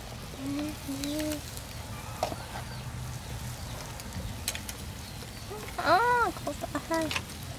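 Metal tongs clicking against snail shells on a charcoal grill, a few sharp separate clicks, with a short rising-then-falling voice-like call about six seconds in.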